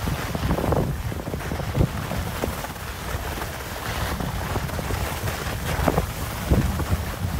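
Wind buffeting a phone's microphone during a downhill run on a ski slope, a low, uneven rushing with gusts, mixed with the scrape of sliding over packed snow.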